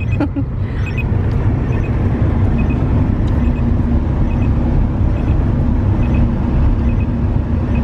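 Steady low rumble of a car driving, engine and tyre noise heard from inside the cabin, with faint regular ticks about once a second.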